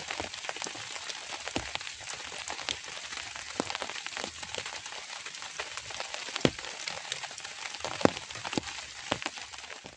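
Drizzling rain: a steady patter of drops with many sharp individual ticks, and a few heavier drops landing near the middle and end.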